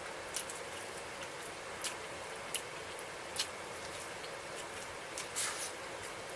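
A person eating saucy chicken wings: a handful of short, wet chewing and lip-smacking clicks, scattered irregularly over a steady hiss.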